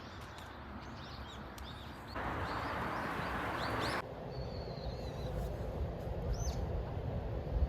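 Outdoor ambience: small birds chirping in short calls over a steady wash of noise, which swells for a couple of seconds in the middle. Low wind rumble comes in during the second half.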